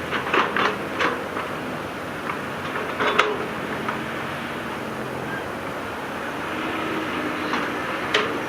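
Diesel engine of heavy earthmoving machinery running steadily, with a few short, sharp high-pitched sounds in the first second, at about three seconds and again near the end.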